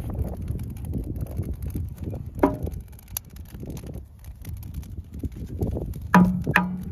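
Split firewood clunking as it is handled and set into a steel fire-pit ring, with one knock about two and a half seconds in and a cluster of louder knocks, briefly ringing, near the end. A low wind rumble on the microphone runs underneath.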